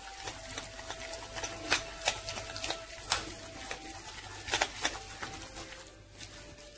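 Light, irregular clicks and taps of fingers working a minced meat filling in a glass bowl, over faint sustained background tones.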